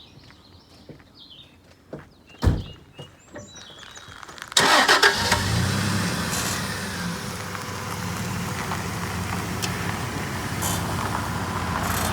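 A few light clicks and a sharp thump, then about four and a half seconds in a vehicle engine starts with a sudden burst and settles into a steady low run.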